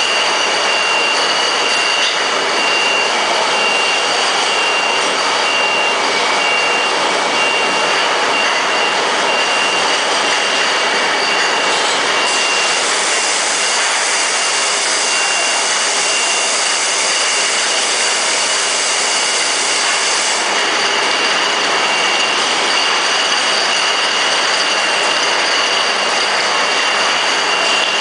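Stainless-steel gherkin processing line running: vibratory shaker, washer and conveyors together making a steady, loud mechanical din with a thin, steady high whine over it. The hiss grows brighter for several seconds in the middle.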